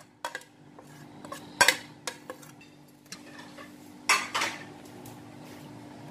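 A utensil knocking and scraping against bowls as chopped onion and green chilli are scraped out of a chopper bowl: a few sharp knocks, the loudest a little under two seconds in, and a longer scrape about four seconds in.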